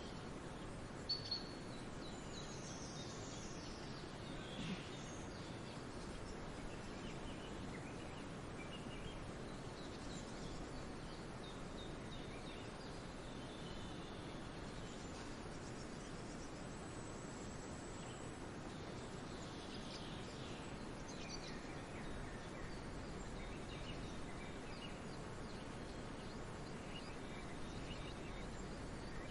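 Wild birds calling faintly: scattered short chirps and whistles over a steady background noise, with two sharp clicks about a second in.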